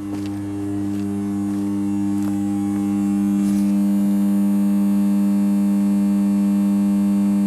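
Loud electrical hum from 33 kV switchyard equipment: a steady low drone with several overtones, growing louder over the first three seconds and then holding.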